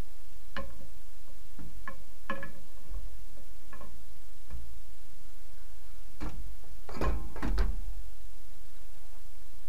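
Scattered metallic clinks and knocks with a short ring, steel tools and U-joint parts being handled and struck during driveshaft U-joint work; the loudest two come close together about seven seconds in. A steady low rumble runs underneath.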